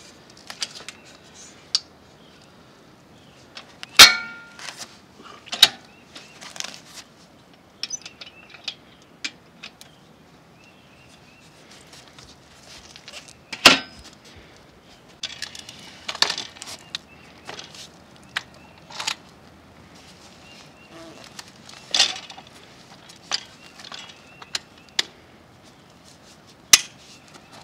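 Irregular clicks, clacks and metallic clanks of folding fat-tyre e-bikes being unfolded and set up, as frame hinges and handlebar stems are swung into place and latched. The loudest is a sharp clank with a brief metallic ring about four seconds in, with several more hard clacks later on.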